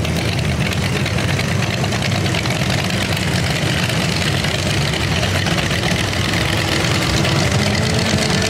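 Custom hot rod's engine idling steadily with a deep rumble through open side-exit exhaust headers.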